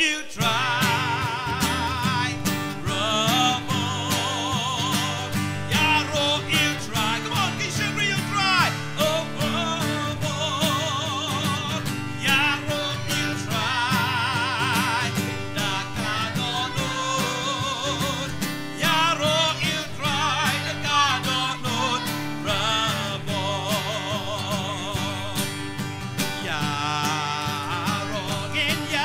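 A children's choir singing a Khasi-language praise and worship song together, with guitar accompaniment.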